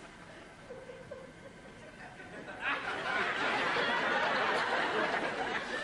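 Studio audience laughter, breaking out loudly about two and a half seconds in after a quiet stretch, in response to a visual gag.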